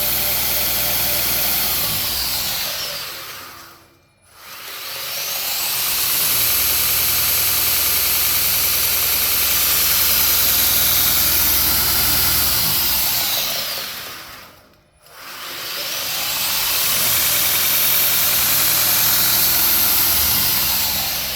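Variable-speed belt grinder's motor and belt running steadily, then winding down to a stop about four seconds in and winding back up in the reverse direction. The same wind-down and restart happens again about fifteen seconds in, and the pitch starts falling once more near the end.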